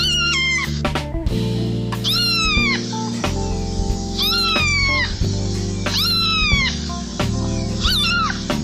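Domestic cat meowing, five short calls about two seconds apart, each falling in pitch, over steady background music.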